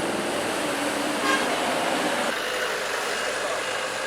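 Heavy road-paving vehicles' engines running steadily. A brief horn toot comes about a third of the way in, and a reversing alarm beeps at an even pace from about halfway in.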